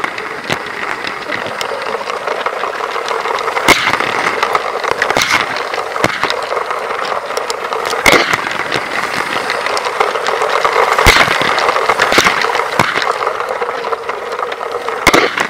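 Lego electric train motor running steadily as the train rolls around the track, with the wheels rattling and several sharp clicks a second or more apart.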